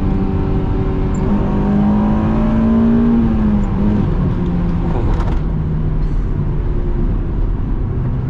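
Honda S2000's JDM F20C four-cylinder engine heard from inside the cabin with the soft top up. The note rises under acceleration for a couple of seconds, falls away about four seconds in, then holds at a lower steady pitch.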